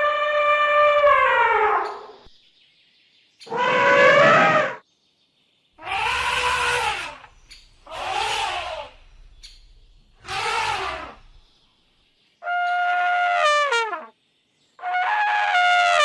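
African savanna elephant trumpeting: a series of about seven loud, pitched calls, each one to two seconds long with short gaps between, several sliding down in pitch as they end.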